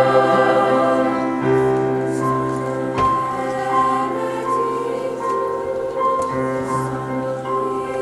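Middle-school three-part mixed choir singing sustained chords, with a high note repeated about every three-quarters of a second from about two seconds in.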